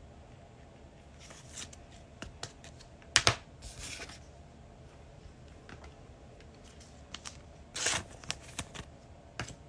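Trading cards being handled and flipped through by hand: scattered soft clicks and brief sliding swipes of card on card, the loudest about three seconds in and again about eight seconds in.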